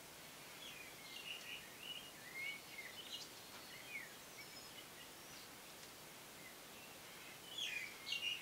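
Birds chirping in short whistled notes that rise and fall, over a faint steady hiss, busiest in the first few seconds and again near the end.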